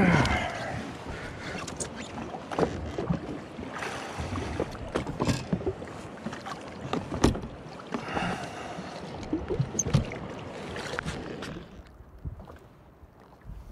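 Water splashing and a run of sharp knocks and clatters as a snapper is netted and lifted aboard a jetski, with a loud splash at the start and another splashy stretch about eight seconds in; it goes much quieter near the end.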